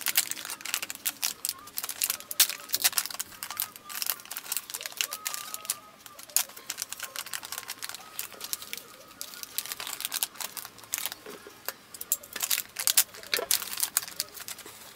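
Silvery foil packaging bag crinkling and crackling in the hands as it is handled and pulled open: a dense stream of sharp crackles that thins out for a few seconds in the middle and picks up again near the end.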